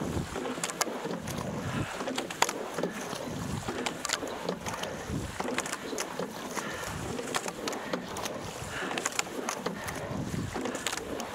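Rowing shell being sculled at racing pace: oar blades working the water, sharp clicks from the oars turning in the oarlocks, water rushing along the hull, and wind on the microphone.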